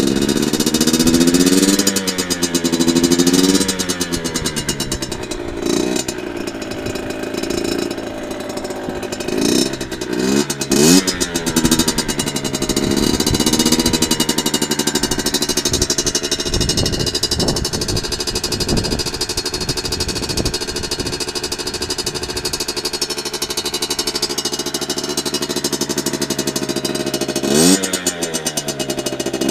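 Rieju MRT 50's 50cc two-stroke engine running, mostly at a steady idle, with its revs blipped up and back down several times: a few quick blips in the first few seconds, more around ten seconds in, and one more near the end.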